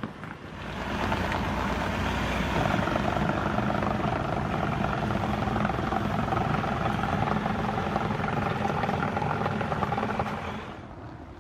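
A steady mechanical whirring with a few held tones. It swells in over about a second, holds, and fades out shortly before the end.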